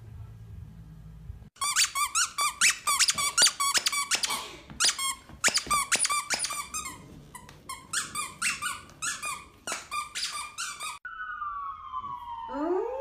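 A dog chewing a squeaky plush toy: rapid, irregular high-pitched squeaks follow one another for about nine seconds. Near the end the squeaks stop and a wavering tone starts, gliding up and down in pitch.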